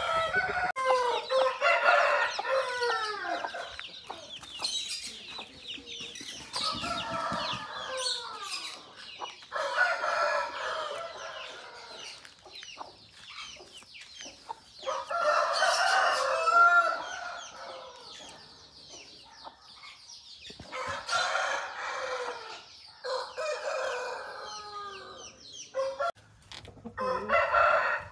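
Aseel roosters crowing again and again, with crows coming in bursts every few seconds and several calls overlapping, alongside clucking.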